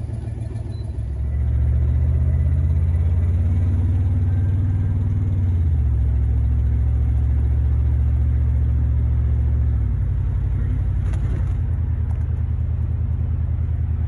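1972 Buick GS 455's V8 engine heard from the moving car, a low rumble under way. It gets louder a second or so in, its note shifts around six seconds in, and it eases off about ten seconds in.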